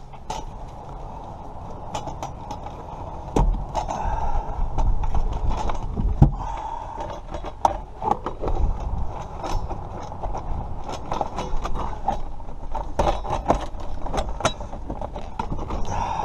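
Irregular clicks, knocks and rattles of metal and plastic parts being handled and fitted back together during an ignition lock cylinder reinstall, getting busier about three seconds in.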